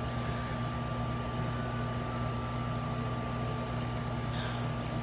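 Window air conditioner running: a steady hum with a constant drone and a faint higher whine over an even hiss.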